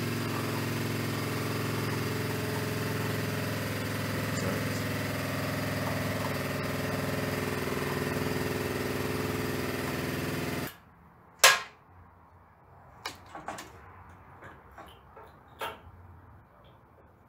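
A small motor or engine running with a steady hum, cut off abruptly about eleven seconds in. Then a few sharp clicks and clinks, one much louder than the rest.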